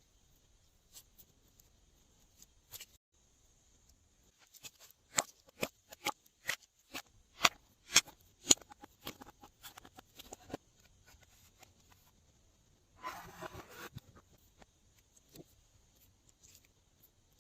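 Glossy slime being squeezed and worked by hand, giving a run of sharp clicking pops, two or three a second, over several seconds, then a short wet squish about 13 seconds in.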